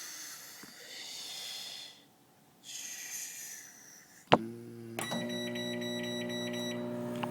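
Soft rustling, then a sharp click about four seconds in, after which a microwave oven starts running with a steady electrical hum.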